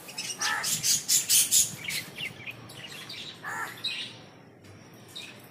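Birds chirping outdoors: a quick run of short, high chirps in the first two seconds, then a few scattered calls.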